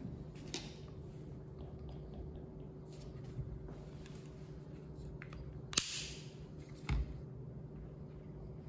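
Plastic calibration cap being fitted onto a portable multi-gas detector: light handling clicks, then a sharp snap about six seconds in with a brief rustle, and a dull thump a second later, over a low steady hum.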